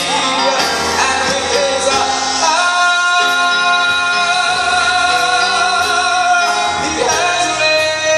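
A man sings a solo into a handheld microphone over instrumental accompaniment. His voice wavers for the first couple of seconds, then holds one long note from about two and a half seconds in until near seven seconds.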